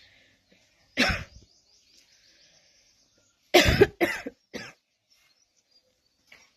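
A person coughing: one cough about a second in, then three quick coughs in a row about halfway through.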